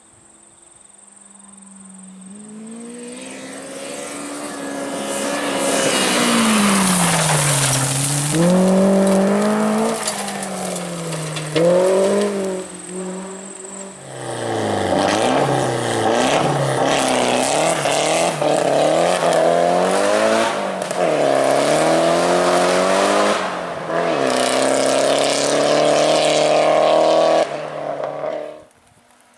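Rally car engine at full effort, revs climbing and dropping through gear changes as the car approaches and passes. About halfway through, the sound jumps to another hard run at high revs, which cuts off suddenly near the end.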